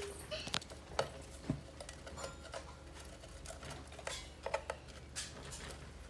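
A budgerigar pecking and scratching at its nest box while pulling out scraps of paper: scattered light clicks and rustles.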